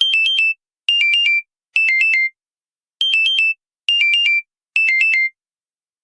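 An LG phone's electronic ringtone: quick chirping figures of three or four short, high beeps, repeated in sets of three with a short pause between sets.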